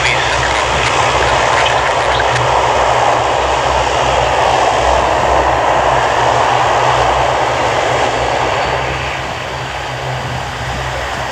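Boeing 777-200ER's jet engines running at low power as the airliner taxis slowly. A steady rushing noise over a low rumble eases off about eight seconds in, and a faint high whine begins to rise near the end.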